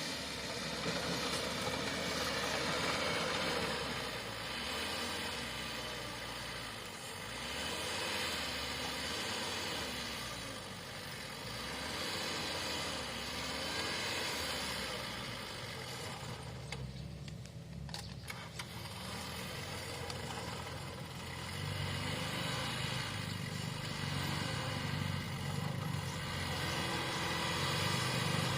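Bulldozer's diesel engine working, its pitch rising and falling repeatedly as it pushes earth, growing heavier and louder near the end.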